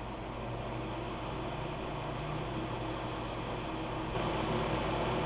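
Wood lathe driven by a 1.5 hp treadmill motor, running with a steady hum. It grows gradually louder, with a step up about four seconds in, as the speed is raised on the treadmill controller.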